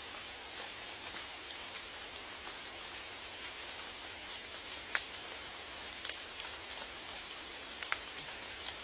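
Rain falling steadily as an even hiss, with a few louder single drops striking about halfway through and again near the end.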